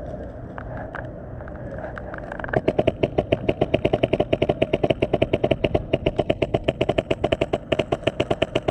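Airsoft rifle firing fully automatic: a rapid, even stream of sharp shots, about ten a second, starting about two and a half seconds in.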